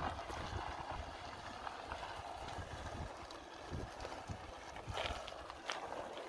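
Jeep Wrangler Unlimited Willys crawling slowly over a rocky dirt trail, its tyres crunching and knocking over gravel and loose stones, with a low rumble underneath.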